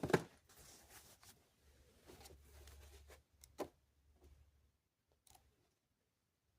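Handling of a paper user guide: a sharp knock at the start, then scratchy rustling of paper, and a single sharp click about three and a half seconds in.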